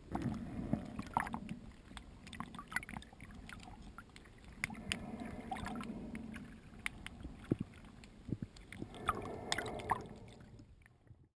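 Water movement picked up by a submerged camera: swells of low rushing noise that come and go every few seconds, with scattered sharp clicks and taps. The sound cuts off suddenly near the end.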